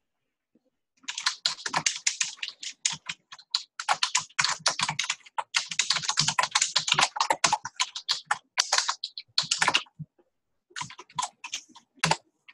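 Typing on a computer keyboard: a fast run of keystrokes starting about a second in, a short pause, then a few last keystrokes near the end.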